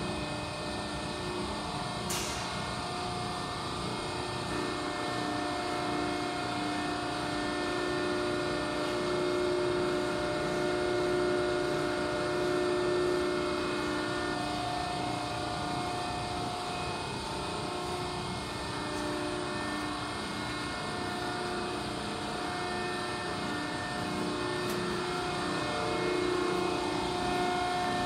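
Steady hum of a Cincinnati 175FMX8 CNC hydraulic press brake's hydraulic pump and motor running idle, with several held whine tones that swell and fade slightly. A single sharp click about two seconds in.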